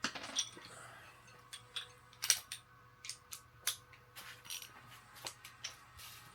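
Scattered sharp metallic clinks and clicks, about a dozen at uneven spacing, of bolts and hand tools being handled during an engine teardown; the loudest is about two seconds in.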